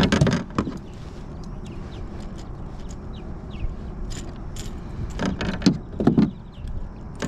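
Handling clatter as a small bass is landed in a kayak: sharp knocks and clicks, loudest in the first second, with a few more knocks about five to six seconds in.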